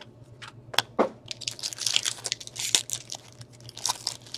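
Foil wrapper of a 2016-17 Upper Deck Trilogy hockey card pack being torn open and crinkled, after two sharp clicks about a second in.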